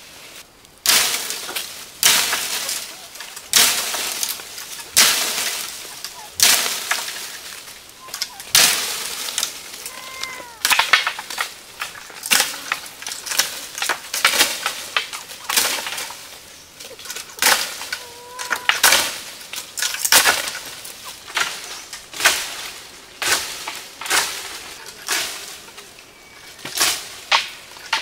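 Leafy tree branches being whacked with a stick again and again, each blow a sharp crack followed by a rustle of leaves, about every second and a half, to knock chestnuts down from the tree. Faint bird chirps between the blows.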